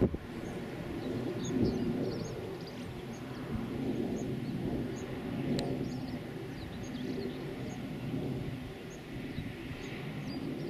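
Low rumble of a Eurofighter Typhoon's twin Eurojet EJ200 turbofans, heard from afar as the jet comes in to land. A bird's short high chirps repeat about once a second over it.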